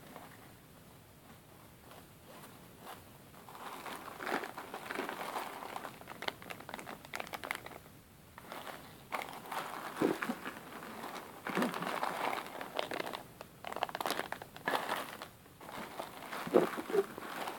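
Clear plastic zip-lock bags crinkling and rustling as they are handled and pulled open. The crinkling starts a few seconds in and comes in repeated bursts, with a few soft knocks among them.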